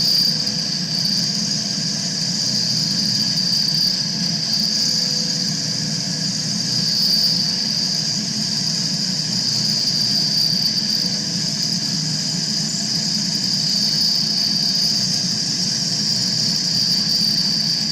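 Milling machine taking a cut in metal: a steady high-pitched whine from the milling cutter over the low hum of the running machine.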